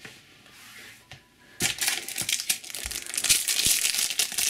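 Crinkling of a Panini Adrenalyn XL trading-card pack wrapper as it is taken from the display box and opened, starting about a second and a half in.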